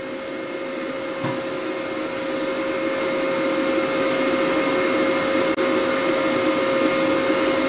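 Steady whirring machine hum with a few constant tones in it, growing gradually louder, with a momentary dropout a little after halfway.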